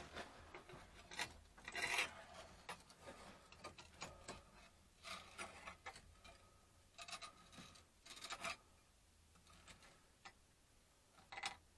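Scattered scrapes and rubs, some short and some about half a second long: a hand-held inspection mirror and a hand working against a concrete wall and a steel heating pipe.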